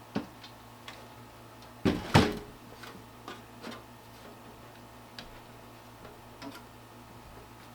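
Scattered clicks and knocks of computer parts and cables being handled and plugged in, with two loud knocks close together about two seconds in. A faint steady hum runs underneath.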